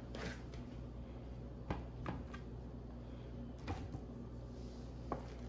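Metal kitchen tongs clicking and tapping lightly against a disposable aluminium foil pan while picking up sauced chicken drumsticks: a handful of faint, separate clicks over a low steady hum.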